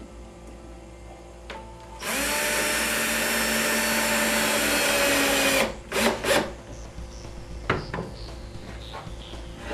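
Hitachi cordless drill driving a screw through a steel drawer slide into the cabinet's wood block. It runs steadily for about three and a half seconds, then gives two short blips as the screw is seated, followed by a light knock.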